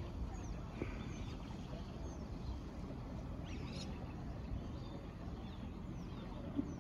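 Faint birds chirping, short high falling calls every second or so, over a steady low rumbling background noise.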